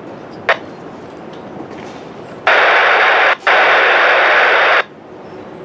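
Radio scanner bursting with loud static hiss for about two seconds, with a brief break in the middle, starting and cutting off sharply: a keyed railroad radio transmission with no voice coming through.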